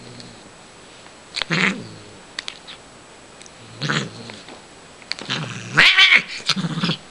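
Siamese cat yowling during play: three calls, the last and loudest near the end, rising and then falling in pitch.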